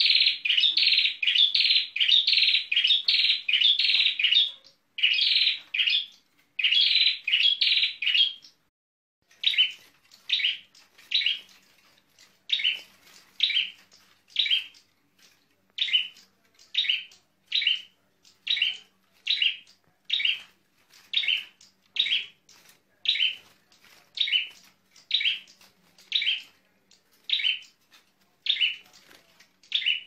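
Prinia (ciblek) singing in full voice: rapid, dense chirping bursts for the first eight seconds, then, after a short pause, a short chirp repeated at an even pace of a little more than one a second.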